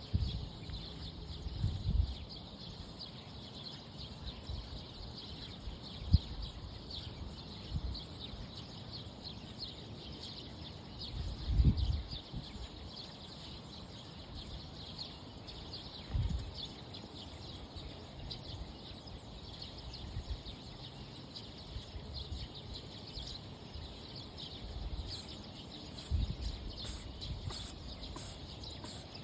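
A cat digging, with a handful of low scuffs and thumps and a sneeze, over steady faint high chirping in the background.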